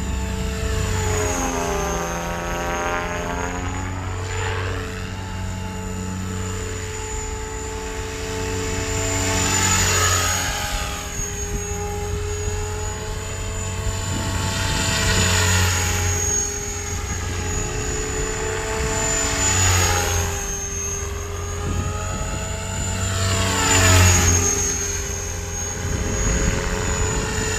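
KDS Innova 550 electric RC helicopter flying 3D aerobatics on short 520 mm main rotor blades: a steady high whine under the rotor sound, and blades slapping the air. The sound swells louder every four to five seconds as it makes passes, its pitch bending up and down with each pass.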